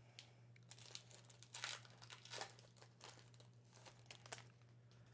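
Faint crinkling and rustling of a foil trading-card pack wrapper and the cards being handled, in a few short bursts, loudest about one and a half and two and a half seconds in.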